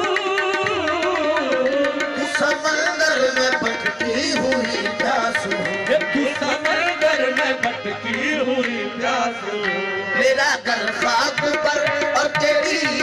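Qawwali music: a naat sung with tabla accompaniment, voices carrying a wavering melody over steady held notes and quick drum strokes.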